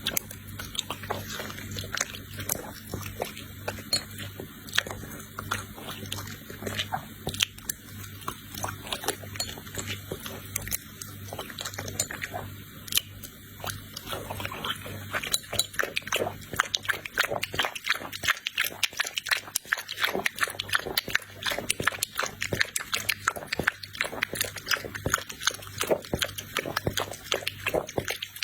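Puppies eating from a dish: rapid wet smacking and chewing clicks that grow busier about halfway through. A steady low hum sits under the first half.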